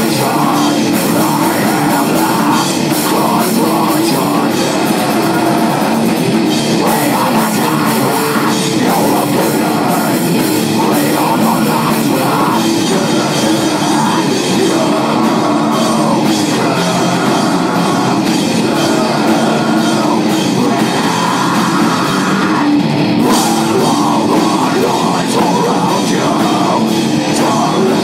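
A rock band playing a loud, steady rock song with drum kit.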